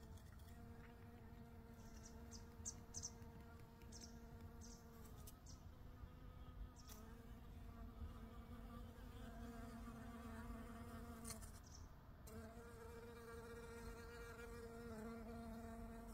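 Honeybee buzzing as it flies among the flowers, a faint steady hum that drops out briefly twice and comes back.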